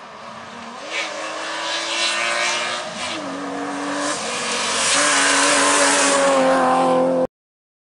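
BMW E36 rally car approaching at speed, its engine note growing louder and stepping in pitch a few times as it nears, then going past close by. The sound cuts off suddenly near the end.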